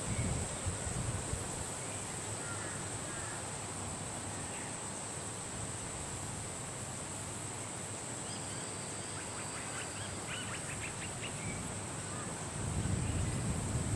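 Outdoor ambience with a steady high insect drone and faint bird chirps, including a quick run of chirps about two-thirds of the way in; a low rumble comes in near the end.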